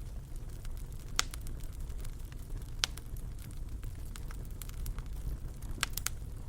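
Wood fire in a fireplace crackling: irregular sharp pops over a steady low rumble. The loudest pops come about a second in, near three seconds, and twice close together near the end.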